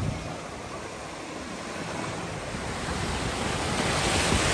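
Small waves breaking and washing in shallow sea surf, the rush of water growing louder through the second half.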